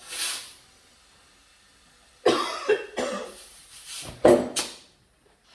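Air rushing into an ATV tire fitted with an inner tube, broken by several sharp pops, the loudest two near the end, as the tire's beads snap onto the rim. A short hiss comes first.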